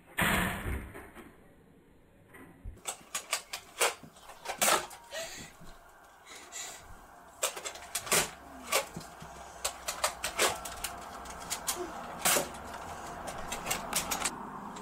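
Irregular sharp plastic clicks and knocks of Nerf foam-dart blasters being handled and reloaded, after one louder sudden sound right at the start.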